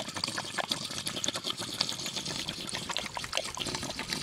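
Water pouring out of a plastic windshield washer fluid jug onto grass: a steady trickle with small irregular splashes.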